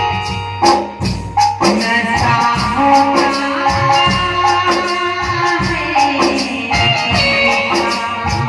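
Live Hindi film song over a PA: a singer's voice with electronic keyboard melody and steady shaker or tambourine-like percussion, dipping briefly about a second in before carrying on.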